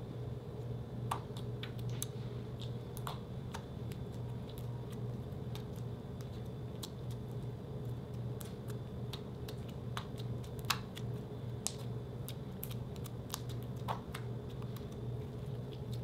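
White slime being poked, pressed and kneaded by fingers as blue lipstick is mixed in, giving irregular small clicks and pops over a steady low hum.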